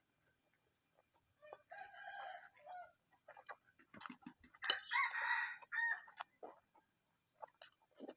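A rooster crowing twice, the second crow louder and longer, with faint scattered clicks between.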